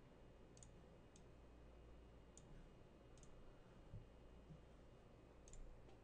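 Faint, scattered computer mouse clicks, about five, over near-silent room tone.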